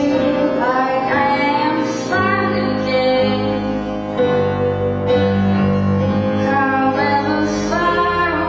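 A woman singing a ballad with piano accompaniment, her voice sliding between held notes over sustained chords.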